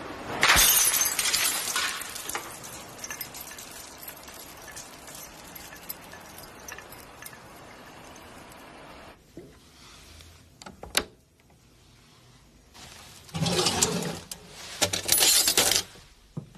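A sudden loud crash about half a second in, fading over a second or two, then a few sharp knocks and two more loud crashes near the end.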